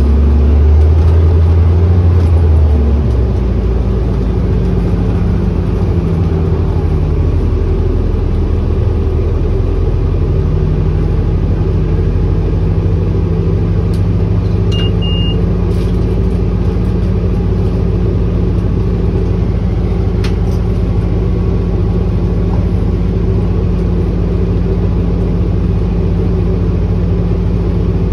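Inside the cabin of an Orion hybrid electric bus under way: a steady low drive hum and road rumble, heavier for the first few seconds, with the drive's pitch shifting before settling into a steady tone. A short high beep sounds about halfway through, and there are a few faint rattles.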